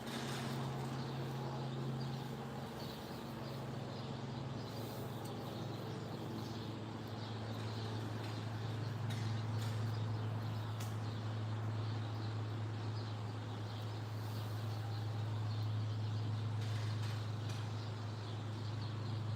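Songbirds singing and chirping over a steady low mechanical hum, like a motor running, whose pitch drops slightly about seven seconds in.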